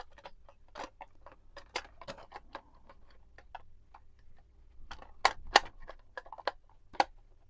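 Plastic clicks and clacks of a cassette being turned over and pushed back into a Saisho PS 21 EQ personal cassette player, with the player's door and buttons clicking. The sharpest clicks come in a cluster a little past five seconds in and once more near the end.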